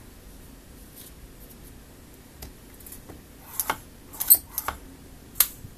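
Sharp clicks and knocks of a hand-worked oboe cane gouging machine as the cane is flipped in the bed and the blade carriage is worked. It is quiet at first, then a scatter of short clacks comes in the second half, the loudest a little past the middle.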